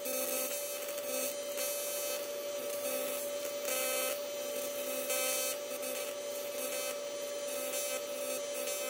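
AC TIG welding arc on aluminum from an Everlast 325EXT welder: a steady high-pitched buzz with a hiss that swells now and then as the filler rod is fed into the puddle.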